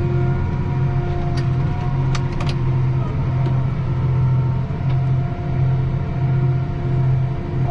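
John Deere 8270R tractor running steadily while pulling a seed drill. A low engine hum pulses about twice a second over steady higher tones, with a few faint ticks.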